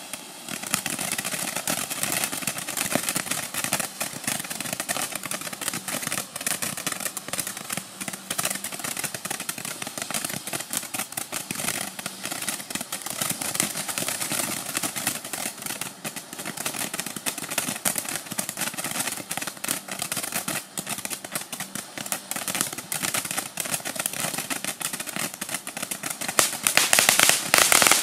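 Tank-shaped 200-gram firework fountain (Abrams-X Super Tank) burning, spraying sparks with a steady hiss full of dense crackling. About 26 seconds in it turns louder and more crackly as it throws out crackling stars.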